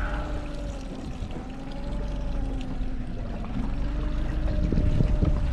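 Outboard motor running steadily at trolling speed, a faint slightly wavering hum, over water noise and a low wind rumble on the microphone that grows louder towards the end.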